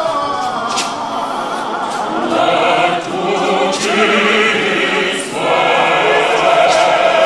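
Men's church choir singing a gospel hymn a cappella in full, many-voiced harmony, swelling louder about two and a half seconds in and again after a brief dip past the five-second mark.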